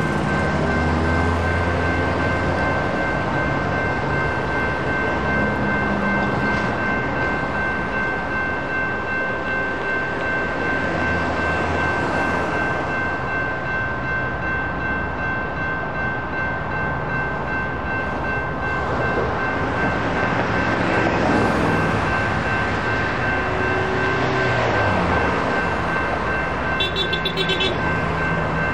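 Railroad crossing warning bell ringing steadily while the crossing lights flash, over the loud rumble of a train passing through the crossing.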